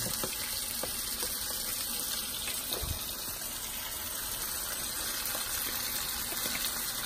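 Swai fillets frying in hot oil in a skillet: a steady sizzle. The fish is still partly frozen, and its moisture spitting in the oil makes the hiss.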